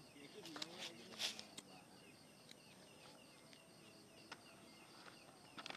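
Quiet night ambience of insects chirping steadily in an even, repeating rhythm. A few faint clicks and crackles and one brief soft hiss come in the first second and a half, then a few isolated ticks.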